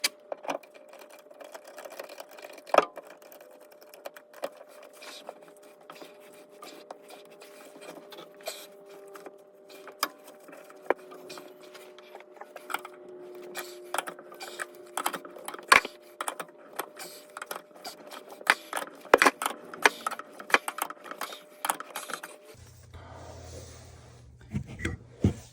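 Irregular metallic clicks, clinks and taps of plumbing fittings and hand tools being handled, over a faint steady background whine.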